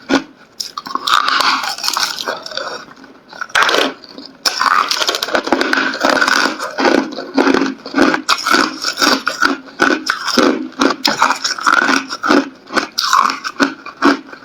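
Hard clear ice being bitten and chewed close to the microphone: rapid, irregular crunching and cracking, with a brief lull a few seconds in.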